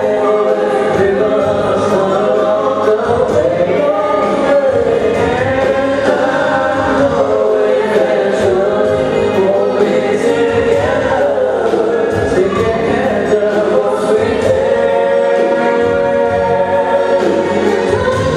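Live band music: held, gliding singing over drums, with cymbal hits at a steady pulse.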